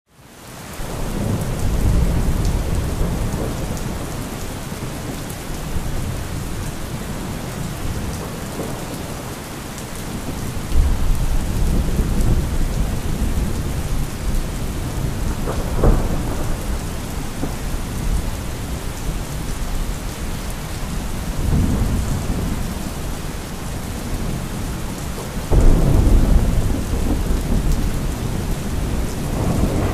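Thunderstorm: steady heavy rain with several low rolls of thunder, a sharper crack about sixteen seconds in, and the loudest rumble starting about twenty-five seconds in. The sound fades in over the first second.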